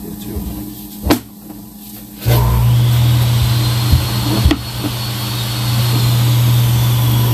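A motor-driven machine switches on a little over two seconds in and runs with a steady low hum. There is a sharp click just before it starts and a single knock about four and a half seconds in.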